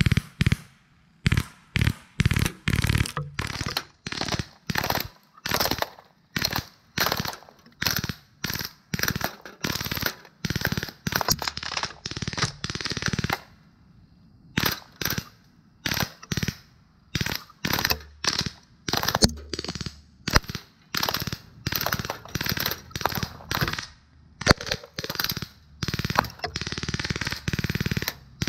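Pellet gun fired repeatedly as a long string of sharp cracks, about one and a half shots a second with a brief pause midway. The pellets hit the steel 1/16-scale M35 RC truck and its load of miniature concrete blocks, breaking pieces off.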